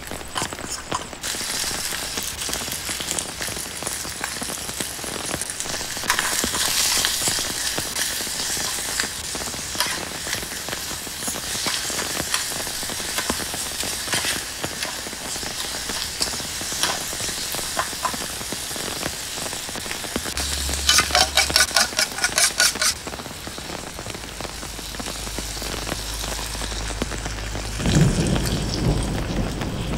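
Vegetables and shrimp sizzling in a camping frying pan while a metal spatula stirs and scrapes against the pan, with a quick run of regular scraping strokes about two-thirds of the way in. Near the end a liquid is poured into the hot pan, adding a fuller, lower sizzle.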